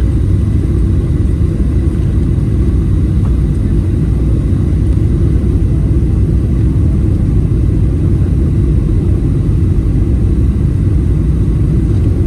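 Steady low rumble of a Boeing 737's engines and rushing air, heard inside the passenger cabin during the descent on approach to landing.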